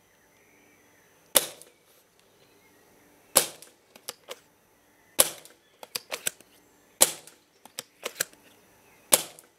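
Silverback TAC 41 P spring-powered airsoft sniper rifle firing five single shots about two seconds apart, each a sharp snap, with fainter clicks in between. They are shots of 0.25 g BBs through a chronograph, measuring just under 3 joules.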